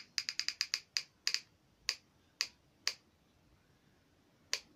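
Hot glue gun trigger clicking as glue is fed: a quick run of about six clicks, then single clicks about half a second apart, with one last click near the end.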